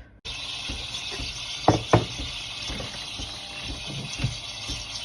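Water running steadily from a kitchen tap, with two sharp knocks close together about a second and a half in and a lighter one later.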